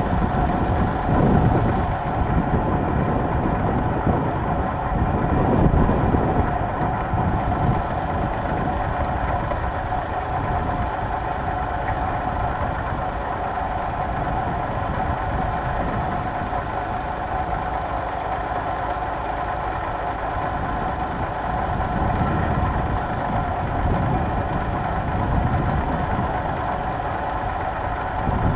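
Tractor engine running steadily, a constant drone with a low rumble beneath it.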